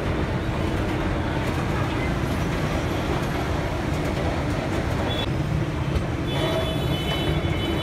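Loud, steady rumble and hiss of vehicle noise in a busy transit station, with a few faint, thin, high squeals near the end.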